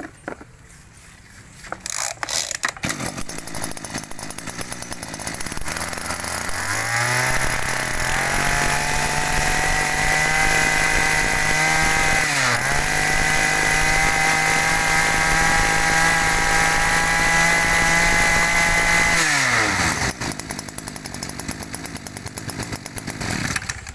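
Hitachi 21cc two-stroke brush cutter engine idling, then throttled up to a steady high-revving whine. About halfway through, the revs dip briefly and come back up, and near the end the engine drops back to idle.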